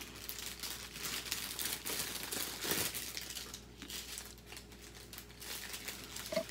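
Small plastic bags of diamond-painting drills crinkling and rustling as a strip of them is handled and unfolded, an irregular crackle that is a little louder around the middle.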